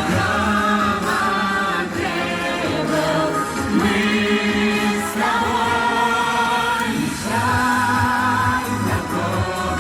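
Music: a pop song sung by a group of voices over an instrumental backing.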